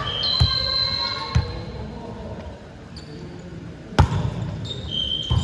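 Ball thumps and high sneaker squeaks on a gym floor during a volleyball-style game: four thumps, the loudest about four seconds in, with short squeals early on and near the end.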